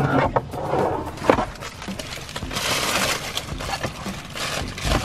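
Plastic toy burger pieces and a plastic spatula clicking and knocking on a toy grill, then a paper burger wrapper rustling and crinkling as a toy burger is wrapped.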